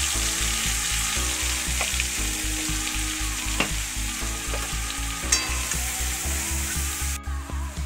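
Ground ginger, cumin and dried-chilli paste with turmeric sizzling in hot oil in a kadai as it is stirred with a spatula. The sizzle cuts off abruptly near the end.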